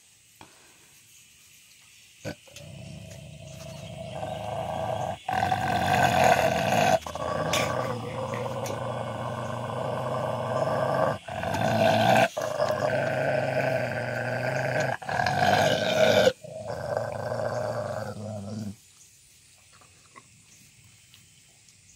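A large Kangal/Great Pyrenees cross dog growling with teeth bared at a wolfdog near its food, one long low growl that starts a couple of seconds in, builds up, is broken by a few short pauses for breath and stops abruptly near the end.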